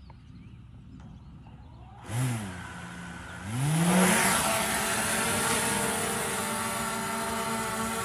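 DJI folding quadcopter drone's motors starting up. About two seconds in they spin up briefly with a quick rise and fall in pitch, then at about three and a half seconds the whine climbs sharply as they throttle up for takeoff. After that they settle into a steady, even hover whine.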